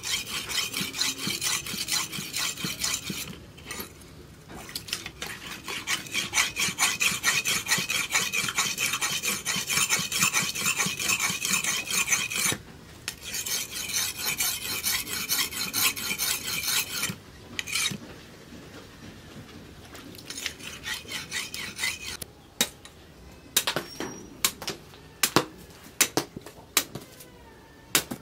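Forged steel cleaver blade honed on a wet, flat sharpening stone: rapid back-and-forth scraping strokes in runs of a few seconds with short breaks. After about twenty seconds the scraping stops, leaving scattered sharp clicks and knocks.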